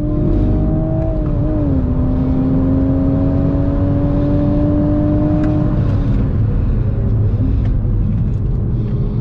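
Toyota GR Supra's turbocharged 3.0-litre inline-six heard from inside the cabin, pulling hard down a straight with its pitch climbing slowly. The pitch dips briefly about a second and a half in at a gear change. A little after halfway the engine note drops away as the car comes off the throttle for the next corner, over steady road and tyre rumble.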